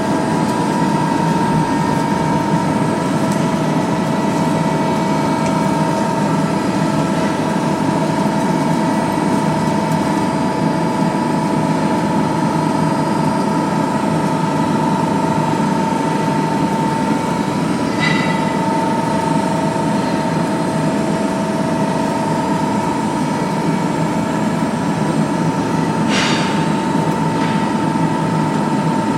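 Lotze CNC press brake running with its main motor and pump on, a steady hum with a high whine, while the machine homes its axes to their reference points. Two short sharp clicks, one about two-thirds of the way through and one near the end.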